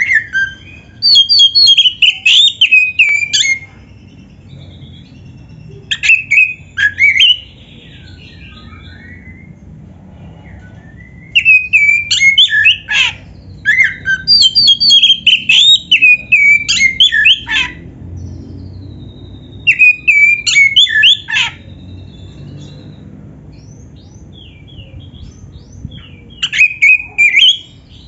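Oriental magpie-robin (kacer) singing in full song: loud bouts of quick, varied whistled phrases, several bouts separated by pauses of a few seconds.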